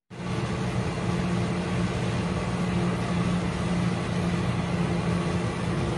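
Steady low hum of a car, heard from inside its cabin, with an even hiss above it.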